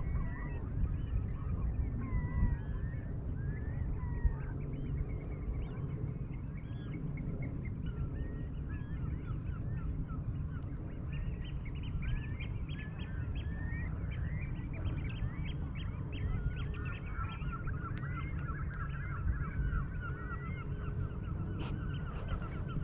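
A flock of birds calling, many short honking calls overlapping, growing denser in the second half, over a steady low rumble.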